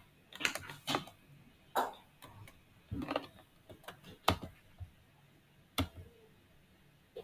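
Computer mouse and keyboard clicks: short, irregular taps, a few close together about half a second in, then single clicks every second or so.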